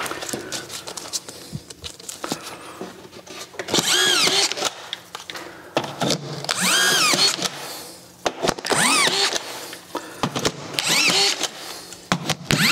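Autofeed drywall screw gun driving collated screws into plasterboard: four short runs of the motor, each whine rising and then falling, about every two seconds, with small clicks and knocks between them.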